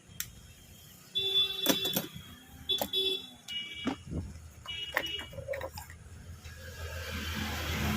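Short electronic beeping tones at a few different pitches, sounding one after another in half-second bursts among sharp clicks; near the end a motor vehicle's engine noise rises as it draws closer.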